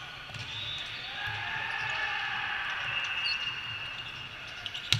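Echoing noise of an indoor volleyball game in a large hall, with players' voices, and one sharp smack of the volleyball being struck or hitting the floor near the end.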